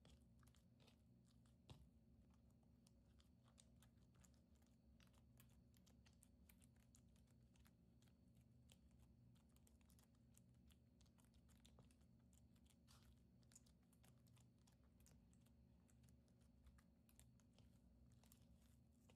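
Near silence: faint room tone with a low hum and many scattered small clicks and taps.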